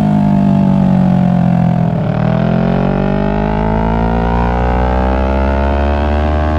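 Kawasaki Ninja 650's parallel-twin engine running through a Two Brothers exhaust, the engine note falling for about two seconds as the bike slows, then rising again as it accelerates and settling at a steady pitch.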